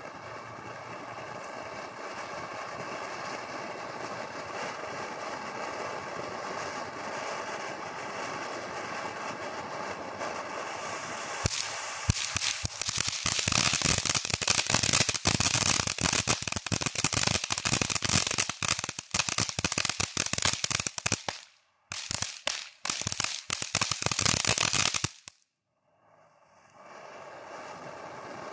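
Firework fountain burning with a steady hiss. About twelve seconds in it turns to loud, dense crackling for about thirteen seconds, which cuts off suddenly. After a short gap, a steady hiss starts again near the end.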